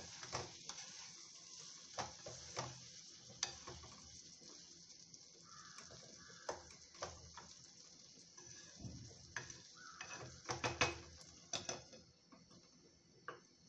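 A spatula stirring and scraping a thick ridge gourd and potato curry in a kadai, with frequent clinks against the pan over a faint sizzle. A cluster of louder knocks comes as a glass lid is set on the pan near the end, and after that it is quieter.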